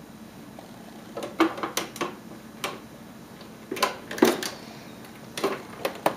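Irregular sharp clicks and knocks, some in quick clusters, over a steady low hum.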